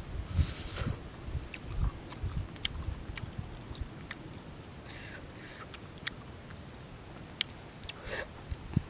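A person biting into and chewing grilled fish, with many wet mouth clicks and smacks.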